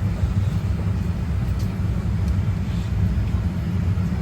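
Steady low rumble of a Boeing 787 airliner's cabin air and ventilation during boarding, with a few faint clicks.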